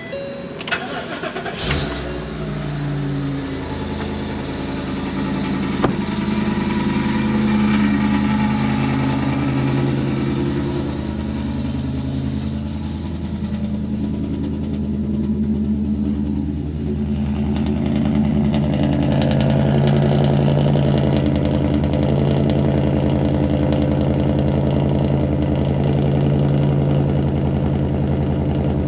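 Ford 7.3L "Godzilla" V8 engine starting: a couple of seconds of cranking, then it catches and runs at a steady idle.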